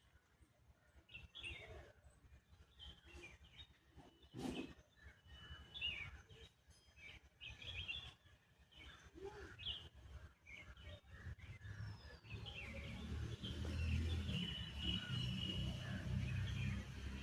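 Birds chirping in short, scattered calls. A single knock comes about four seconds in, and a low rumble builds up over the second half.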